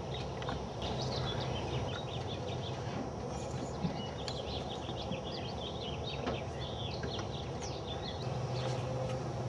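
Steady low hum of a honeybee swarm clustered in a tree, with birds chirping over it.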